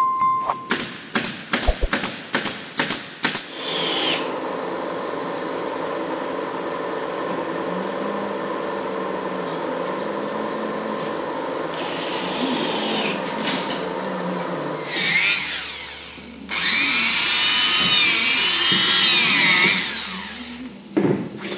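A pneumatic stapler fires a quick run of about ten sharp shots into a cabinet panel. A steady mechanical hum follows. Then a cordless drill whirs in bursts, its pitch rising and falling as the speed changes.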